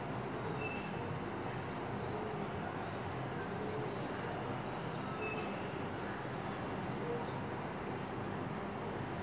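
Steady background hiss with a faint thin high whine, and faint short high chirps recurring irregularly, about one or two a second.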